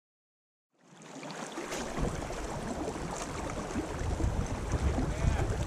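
Water of a shallow river rushing and lapping, with wind buffeting the microphone in a low rumble; it starts suddenly about a second in.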